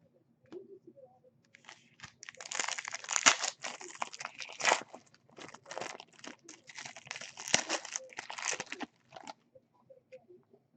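Trading card pack wrapper being torn open and crinkled: a run of crackling from about two seconds in until near the end.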